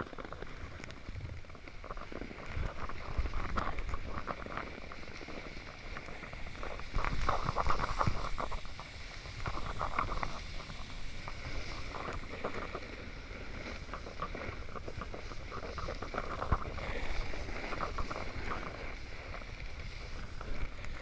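Wind rushing over the microphone while riding, with a snowboard's edges scraping and hissing over snow in surges that swell and fade.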